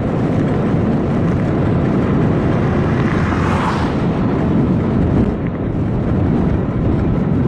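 Wind rushing over the head-mounted camera's microphone on an electric bike at about 52 km/h, a dense low rumble with tyre noise from the asphalt underneath. A brief swell of higher hiss comes about three and a half seconds in.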